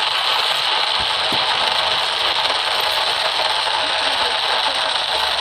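Fireworks crackling: a dense, steady crackle of many small pops.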